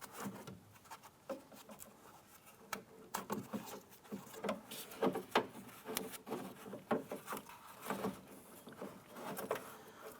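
Rubber boot being worked by hand onto the back of a plastic interior door handle: irregular light rubbing and small clicks.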